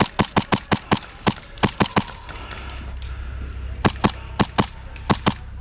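Airsoft guns firing in quick single shots: about ten sharp cracks in the first two seconds, a pause, then about six more from about four seconds in.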